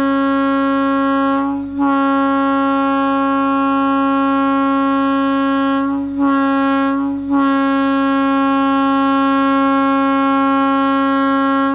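Nathan M1 single-chime locomotive air horn blowing one steady, loud note in four blasts. Three brief breaks come about two seconds in, near six seconds and near seven seconds, and the last blast is long.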